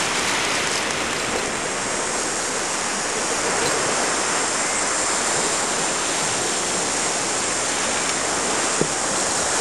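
Steady rush of small waves washing onto a sandy beach.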